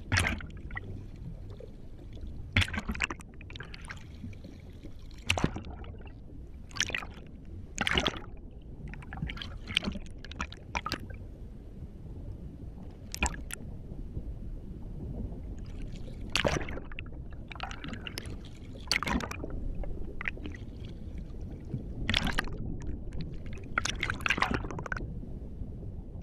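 Underwater ambience from a film soundtrack: a steady low water rumble with gurgles and a dozen or so sharp irregular knocks or clicks, one every one to three seconds.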